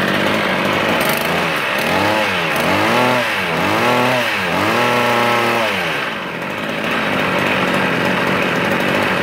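Kawasaki TG25 brush cutter's 25cc two-stroke engine running, its revs rising and falling about four times as the throttle is blipped, then running steadily.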